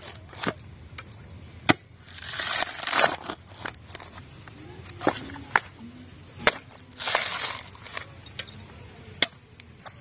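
Coconut husk being pried and torn off with iron tongs: two bursts of fibrous tearing, each about a second long, with sharp cracks and clicks between them as the husk splits.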